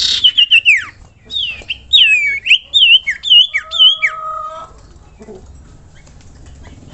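Common iora singing: a quick run of sharp whistled notes that sweep downward, ending in one long level whistle that stops about two-thirds of the way through.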